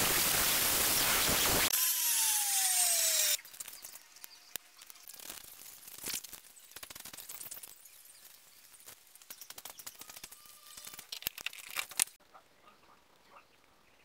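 An angle grinder runs, then winds down with a falling whine a little over two seconds in. After that a 5160 spring-steel knife slices through a sheet of paper, with soft scraping and small clicks.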